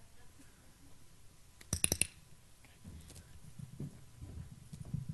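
A handheld dog-training clicker clicking in a quick cluster about two seconds in, marking a correct move by the person being trained. Soft low thumps follow in the second half.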